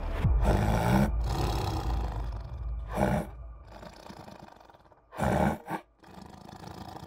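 Tiger roaring: a long roar just after the start, a shorter one about three seconds in, and two short growling roars a little after five seconds.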